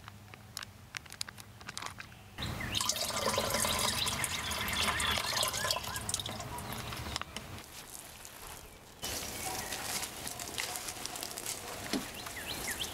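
Light crinkling of a plastic pouch, then water poured from the pouch into a plastic watering can, splashing for several seconds. About nine seconds in, a second pour starts suddenly: water streaming from the watering can's rose onto plants and soil.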